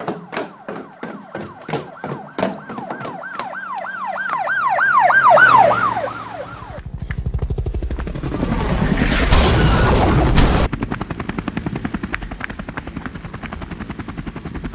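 A siren sounds in repeated dipping-and-rising sweeps that come faster and grow louder, then breaks off into a loud rushing noise about seven seconds in. Near the end a rapid, even chopping pulse continues.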